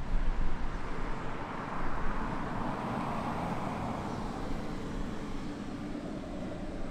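Turbofan engines of an Embraer E-Jet airliner at taxi power as it rolls past: a steady jet hiss that swells two to three seconds in and then slowly fades. Low wind rumble on the microphone in the first second.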